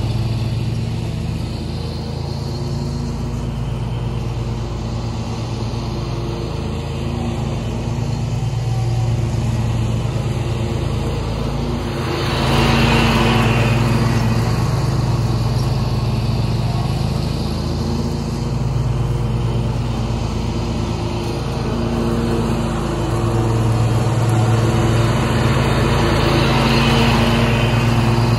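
Gravely zero-turn lawn mower's Kawasaki engine running steadily under way, growing louder with a rush of noise about halfway through as the mower comes closer.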